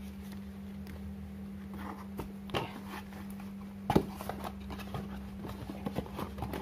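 Paper and cardboard being handled: a booklet slid into a cardboard box and a leaflet picked up, with light rustles and taps and one sharper knock about four seconds in, over a steady low hum.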